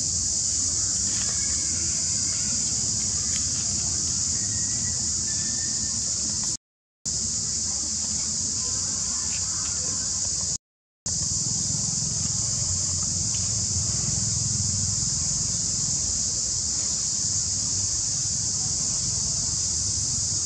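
Steady high-pitched drone of an insect chorus, with a low rumble beneath it. The sound cuts out completely twice for a moment, about a third of the way in and again about halfway.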